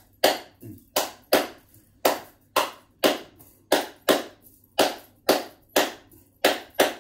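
Hand claps playing the son clave rhythm: sharp claps, about two a second, in an uneven, syncopated spacing that repeats.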